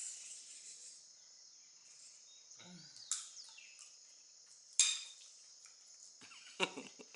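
A metal fork clinking a few times against a ceramic plate as food is scooped up, over a steady high-pitched insect chirring.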